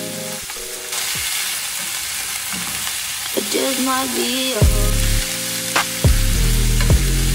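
Food sizzling and frying in a hot pan: a steady hiss, with background music with a bass beat coming in a little past halfway.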